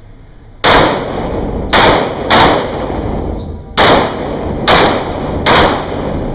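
Six pistol shots fired in an uneven string, the first about half a second in. Each shot is followed by a long echo in the concrete-walled indoor range.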